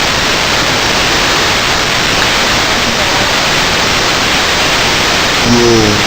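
Steady loud rushing noise with no clear rhythm, and a brief low pitched call or voice about five and a half seconds in.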